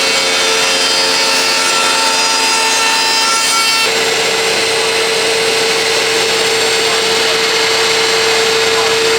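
Wood-Mizer MP200 slab flattener running, its motor-driven cutting head surfacing a wood slab with a steady whine and cutting noise. About four seconds in the tone changes abruptly to a single steady hum.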